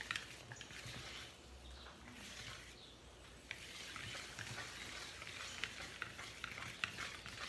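Stand-mixer wire whisk, worked by hand, folding flour into a whipped sponge batter in a bowl: soft wet swishing, with light clicks of the wires against the bowl that come thick and fast in the second half.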